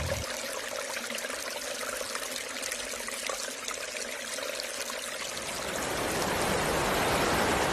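Steady noise of running water, like a river flowing, which swells into a louder, fuller hiss near the end.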